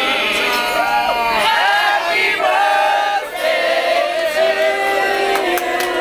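A group of people singing a birthday song together, several voices holding notes at once.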